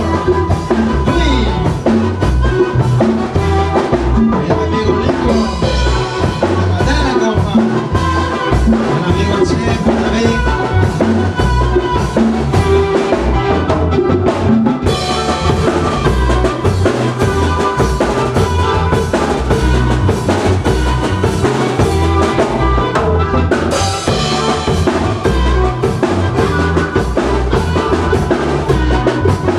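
A band playing a Mixtec chilena, an instrumental passage with a drum kit keeping a steady, driving beat under the melody instruments.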